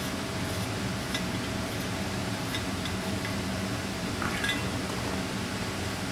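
A few faint metallic clicks and clinks as a hand tap is turned, cutting threads in a bolt hole of an aluminium Offenhauser intake manifold. Under them runs a steady machine hum.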